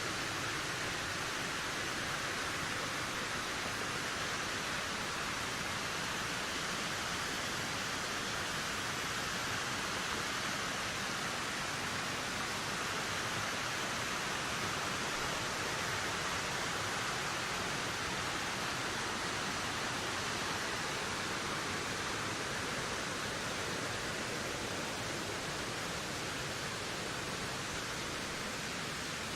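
Wind blowing steadily, a dense, even rushing hiss with no gusts or breaks.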